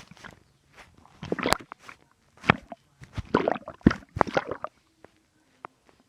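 Human stomach gurgling and rumbling in irregular bursts over about five seconds, then a few faint short gurgles near the end.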